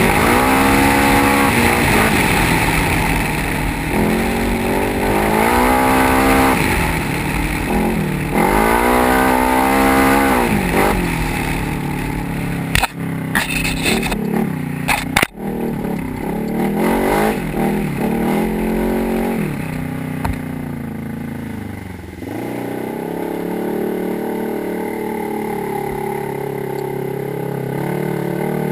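Polaris RZR XP 900 side-by-side's twin-cylinder engine revving up and falling back three times, then a few sharp knocks about halfway through, followed by steadier, lower running.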